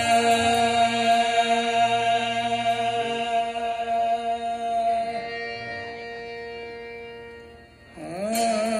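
Qawwali music: a harmonium holds a steady chord under a long sung note, fading away over several seconds. Near the end a lead voice starts a new, wavering phrase.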